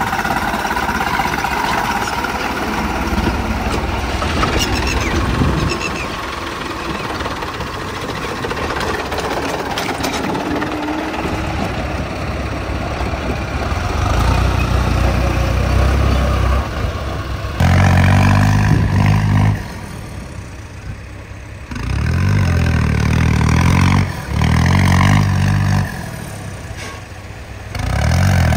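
Heavy diesel farm machinery engines running. In the second half the engine note comes in loud bursts of about two seconds each, starting and stopping abruptly several times.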